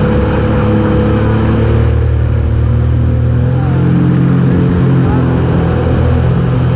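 Motorboat engine running steadily at speed while towing, over the hiss and churn of the wake and spray behind the boat.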